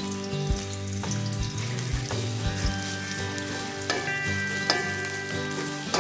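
Sliced onions sizzling in hot oil in a cast aluminium wok, stirred with a wooden spoon that knocks and scrapes against the pan now and then: raw onions starting to fry on medium heat.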